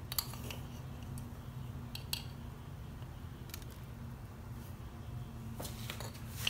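Faint clicks and light taps of a metal measuring spoon against a ceramic bowl as dried chili flakes are tipped in: a few scattered clicks, with more near the end, over a steady low hum.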